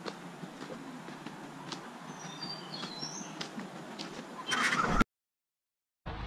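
A few short, high bird chirps over a faint outdoor hiss, with scattered soft footfalls on a dry, leaf-strewn trail. Near the end a louder scuffle, then the sound drops out completely for about a second before a louder low rumble starts.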